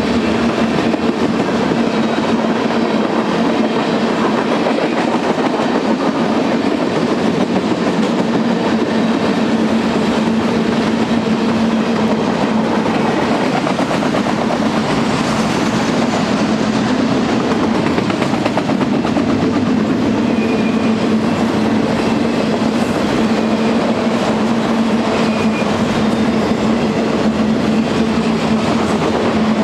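Freight cars of a long mixed freight train rolling steadily past at close range, steel wheels rumbling on the rails, with a steady low hum.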